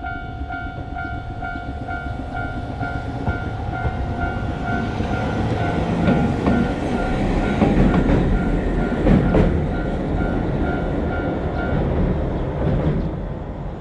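Japanese railroad crossing alarm bell ringing its rapid, evenly repeated 'kan-kan' clang while a train passes through the crossing. The train gets louder, with clacks of its wheels over the rail joints. The bell stops about 12 seconds in, and the train noise fades near the end.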